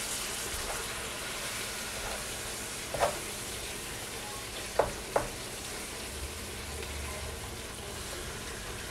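Ground beef with bell pepper and onions sizzling in a hot pot while a wooden spoon stirs and breaks up the meat, with a steady hiss. The spoon knocks against the pot about three seconds in and twice just before and after five seconds.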